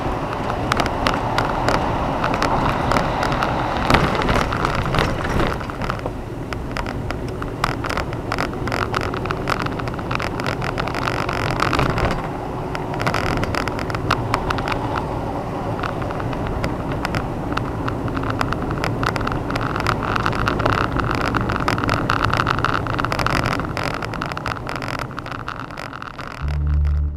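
Vehicle driving on a rough, stony road: steady road and engine noise with a constant crackle of small sharp clicks, like gravel and stones knocking under the tyres.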